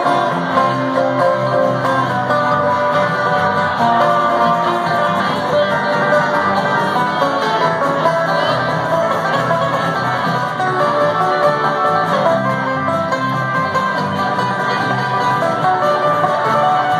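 Live bluegrass band playing: banjo, acoustic guitar, mandolin and electric bass, with the banjo out front.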